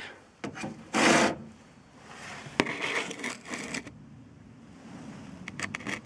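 Handling noises: rubbing and scraping with a few sharp clicks, and a short loud rush of noise about a second in.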